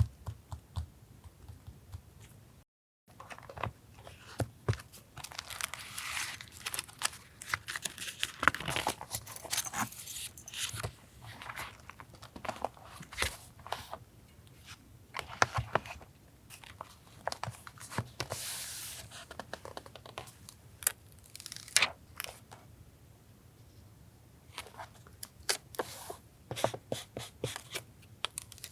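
Paper being torn, crinkled and handled for collage, in irregular bursts of rustling with many sharp little clicks and taps.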